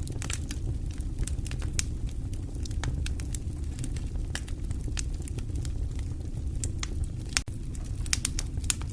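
Fire in a fireplace crackling, with many sharp, irregular pops over a steady low rumble of flames.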